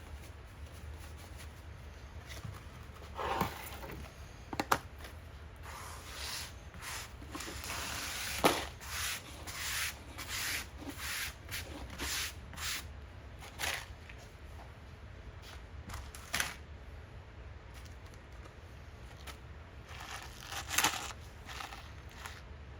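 Irregular clicks, knocks and short scrapes of hard objects being handled, over a steady low hum.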